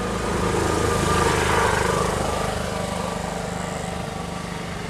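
A motor engine running steadily, with a swell of louder noise that builds, peaks about a second and a half in, and fades away.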